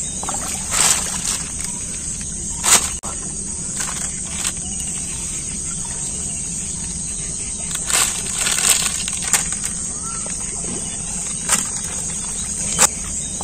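Small river fish being handled on wet mud and plastic sheeting: several short sharp slaps and crinkles as the fish are picked up and dropped onto the sheet, the loudest about a third of the way in and near the end. Under them runs a steady high drone of insects.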